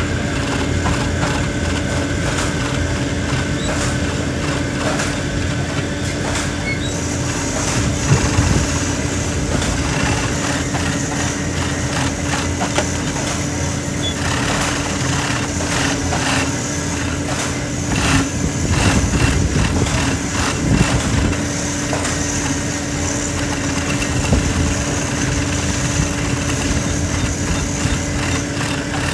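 Industrial post-bed sewing machine stitching leather boot uppers: a steady motor hum with runs of rapid needle clatter that start and stop as the leather is fed through, busiest about 8 seconds in and again around 18 to 21 seconds.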